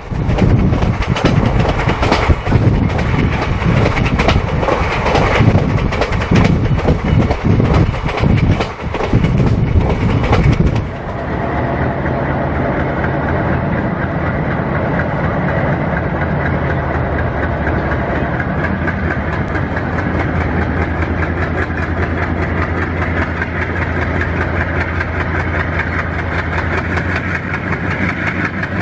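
Loud, gusty rushing and rattling of a train for about the first ten seconds. It then gives way to the steady, pulsing run of an ALCO WDM3D diesel locomotive's engine, with a deep hum.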